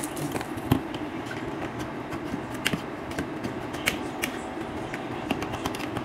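Metal utensils clicking and scraping against a bowl as food is mixed, in scattered sharp clinks, the loudest about a second in, over a steady low hum.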